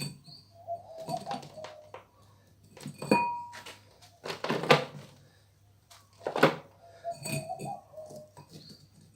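Hand-work knocks and thuds, three of them loudest, the first with a short metallic ring about three seconds in. A bird coos softly twice behind them, once near the start and once near the end.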